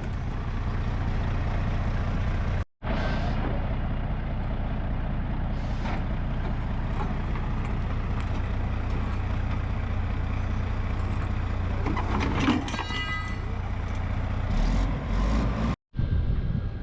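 Truck engine running steadily with a low, even hum. The sound drops out abruptly twice.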